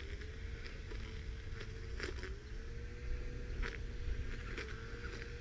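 Electric motors of an RC crawler rigged as a weed whacker, with a 540 motor spinning a cutting blade: a steady whine that sags in pitch a few times, with several sharp ticks as the blade strikes plants.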